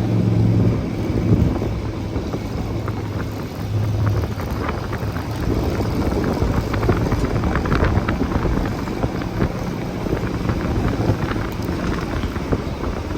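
A vehicle driving: steady engine hum and road and wind noise. A low hum fades about four seconds in, leaving rougher road rumble with scattered small ticks.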